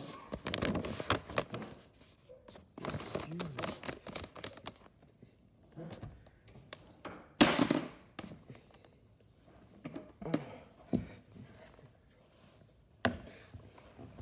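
Irregular knocks, taps and rustles of objects being handled close to the microphone, with a louder short rustle about seven and a half seconds in and a sharp knock about thirteen seconds in.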